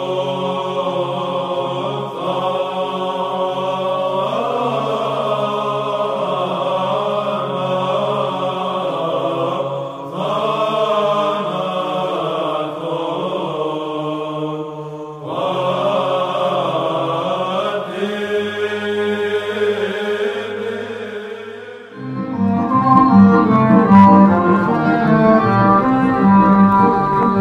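Orthodox liturgical chant: voices holding long sung notes over a steady low drone. About 22 s in it gives way to louder instrumental music with a quick beat.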